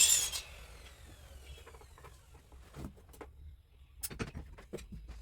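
Soldering work at a bench: a brief hiss right at the start, then scattered light clicks and taps.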